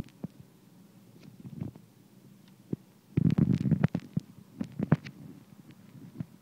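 Handling noise from fingers tapping and rubbing on a smartphone: scattered sharp clicks, and a stretch of low rumbling rubbing about three seconds in that lasts about a second.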